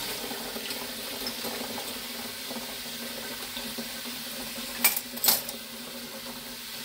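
Tap water running steadily from a kitchen faucet into a stainless steel bowl in the sink, filling it. About five seconds in come two sharp metallic clinks, a moment apart.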